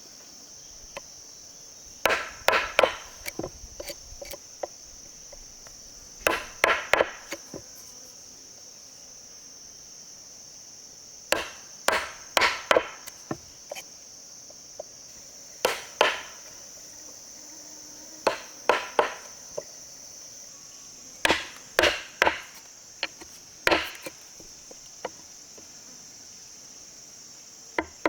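A tool striking wood with sharp knocks, in short groups of a few blows every few seconds, over a steady high insect drone.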